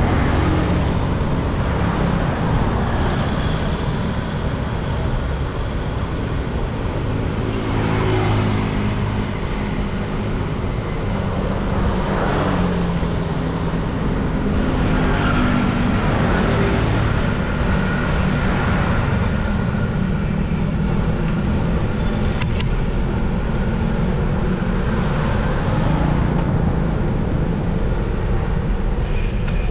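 Road traffic: a steady low rumble of motor vehicles, with several vehicles swelling up and passing by.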